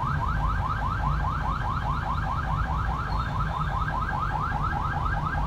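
An electronic alarm sounding a fast, even run of short rising chirps, about six a second, over the low rumble of a vehicle ride.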